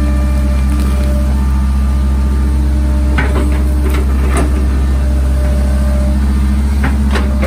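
Hitachi excavator's diesel engine running steadily under load, heard from the operator's seat, with a few sharp metallic knocks from the bucket and boom about three to four and a half seconds in and again near the end as the bucket swings and dumps soil.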